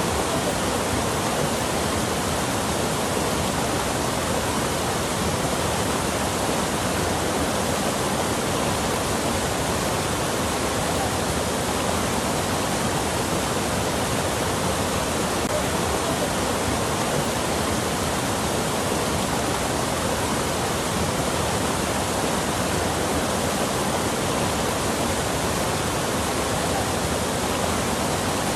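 Rushing water running steadily, an even, unbroken hiss with no separate splashes or drops.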